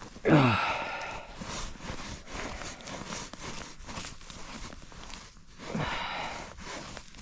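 A man lets out a loud grunt that falls in pitch, and a second weaker one near the end, amid rustling and scraping of handling snow and wood at a fire pit.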